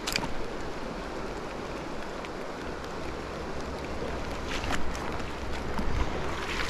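River water running steadily, with wind rumbling on the microphone from about three seconds in and a few short clicks.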